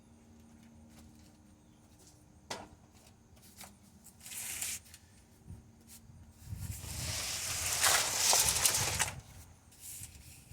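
Handling noise: a click, then a rustling, scraping sound that swells and is loudest about eight seconds in, over a faint steady hum.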